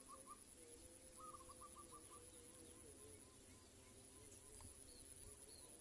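Faint rural ambience: a bird calling in a quick run of short repeated notes about a second in, over a steady high insect buzz and low rumble.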